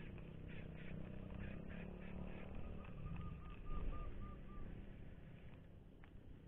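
Faint, soft rhythmic whirring of a spinning reel being cranked to retrieve a casting lure, over a low rumble. A quick run of short, high chirping notes sounds about three to four seconds in.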